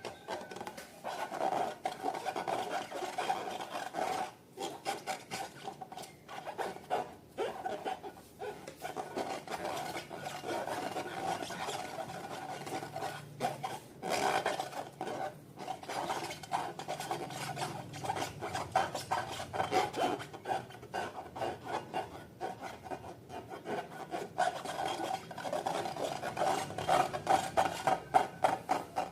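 Slime being stirred and worked by hand, a dense, uneven run of sticky clicks and crackles.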